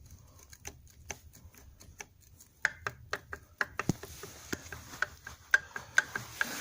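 Metal parts of a dismantled YX 160 pit bike engine clicking and knocking against each other as they are handled, some clicks with a short metallic ring. The clicks are sparse and faint at first and come faster and louder from about two and a half seconds in.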